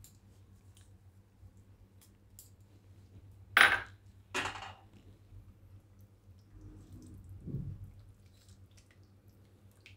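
Two sharp clinks of a utensil against a pan, under a second apart, then a spatula stirring a thin, saucy cauliflower curry in the pan, soft and wet.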